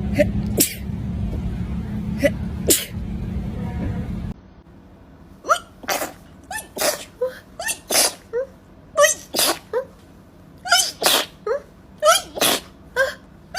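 A person sneezing rapidly, over and over. Over a steady low hum there are a few sharp sneezes. Then, after a cut to a quiet background, comes a run of more than a dozen short sneezes, one or two a second.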